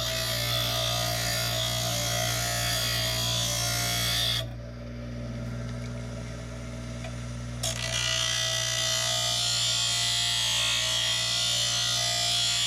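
Metal cutoff wheel on a power tool cutting steel sawblade: a steady motor hum under a gritty, high grinding noise. About four and a half seconds in the wheel comes off the steel and only the quieter running motor is left, then it bites in again about three seconds later.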